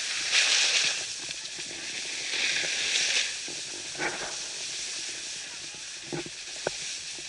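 Snowboard sliding over groomed snow: a steady hiss, with two louder scraping swells as the edge bites in turns, about half a second in and near three seconds in, and a few short faint knocks later.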